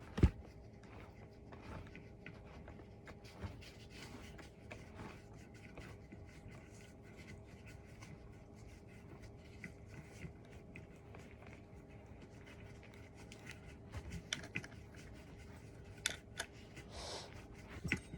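Cat tree parts being handled and fitted together: scattered small clicks, rubs and rustles, with a sharp knock just after the start and a cluster of knocks near the end, over a faint steady hum.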